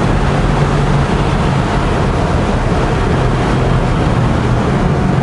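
Mercedes-AMG GT R Roadster's twin-turbo V8 running hard at around 250 km/h, with its note holding a near-steady pitch under a loud, constant rush of wind through the open roof.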